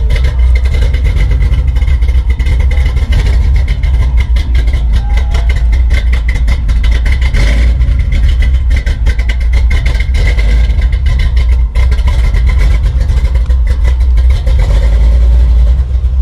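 Chevrolet Silverado 10 square-body pickup's engine running, a loud, steady deep rumble.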